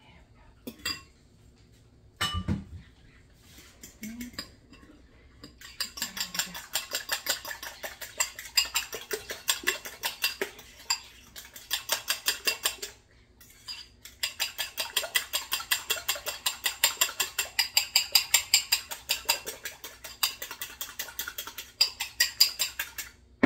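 A metal fork beating egg wash in a ceramic bowl, its tines clinking rapidly against the bowl about four times a second, with a brief pause a little past halfway. A single knock comes about two seconds in.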